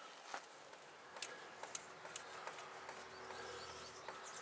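Faint, scattered light clicks and taps of hand tools and parts being handled while fitting a transmission sensor on a van.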